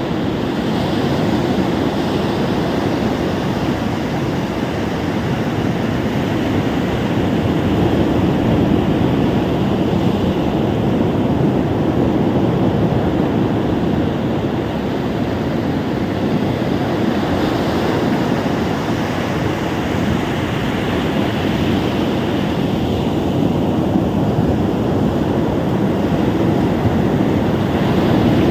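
Ocean waves washing onto a beach: a continuous rushing surf that swells and eases slowly.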